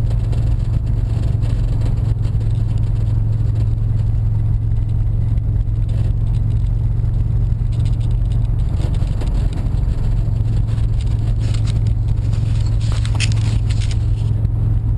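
Freshly rebuilt car engine running with a steady low drone while driving, the sudden engine noise that the owner suspects comes from failing crank bearings or a con rod. Brief scraping rustles near the end.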